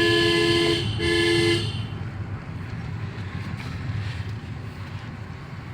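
A vehicle horn honking twice in two-tone blasts, the first ending just under a second in and the second a short toot about a second in. Steady engine and road rumble of the moving vehicle follows.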